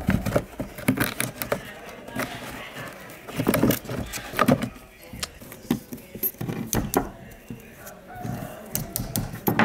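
Scattered clicks and knocks of small metal and plastic parts of an old electric fan being handled, as the piano-key speed-switch block is worked loose and set down on a wooden bench.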